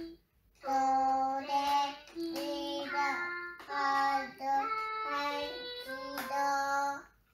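A baby's electronic activity table playing a recorded nursery song sung in a child's voice through its small speaker, set off by the toddler pressing its piano keys. The singing starts about half a second in and stops shortly before the end.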